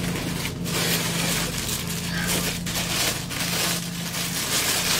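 Paper packaging rustling and crinkling in repeated handfuls as a wrapped item is pulled out of it.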